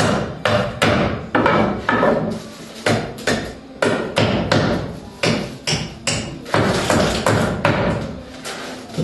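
Hammer striking wood over and over at an uneven pace, about two blows a second, as boards and nailed framing are knocked apart during hand demolition.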